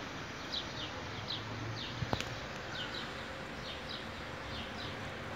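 Short high chirps, each sliding downward, repeating about twice a second over a steady outdoor hiss, with a single sharp click about two seconds in.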